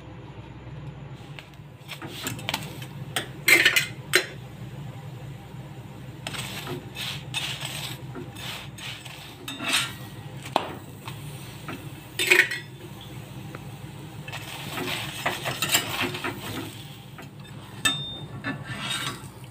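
A spatula scraping, rubbing and pressing a paratha on a hot iron tawa (griddle) in irregular strokes as it is fried and turned, over a steady low hum.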